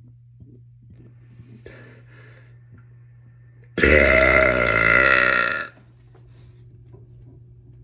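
A man's long, loud, deliberate burp about four seconds in, lasting about two seconds, with a steady pitch.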